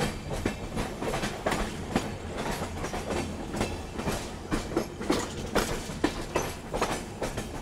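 Passenger train wheels clattering over rail joints and pointwork where tracks merge at a junction: a quick, irregular run of sharp clicks over a steady rumble.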